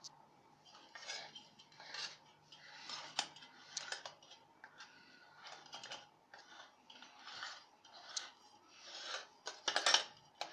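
Metal spoon scraping and rubbing as chocolate icing is spread over a cake on a steel plate, in repeated short strokes about one a second, loudest near the end. The steel plate scrapes now and then as it is turned.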